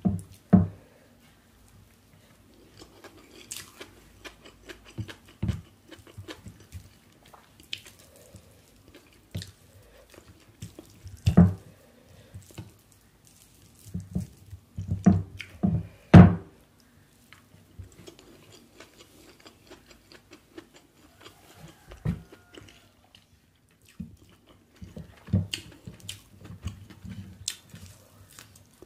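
Close-miked fingers mixing and pressing biriyani rice on a plate: soft wet squishes and small clicks in irregular bouts, with a few louder clusters about a third and halfway through.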